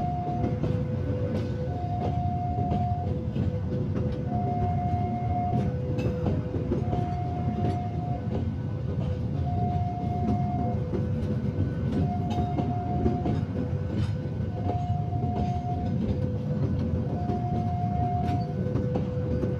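Passenger train carriages rolling slowly past, with a steady low rumble and scattered wheel clicks over the rail joints. Over it a level-crossing warning alarm repeats a two-note chime, a higher note then a lower one, about every two and a half seconds.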